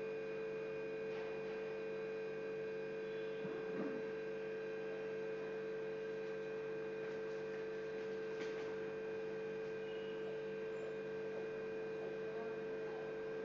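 Steady electrical hum made of several held tones, with a faint soft rustle about four seconds in.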